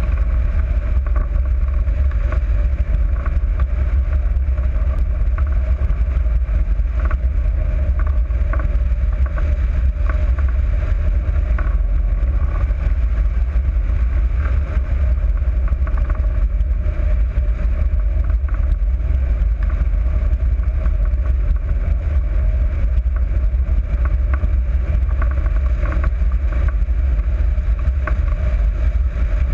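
Steady, loud rush and rumble of wind buffeting the microphone of a glider-mounted camera as a hang glider flies through the air.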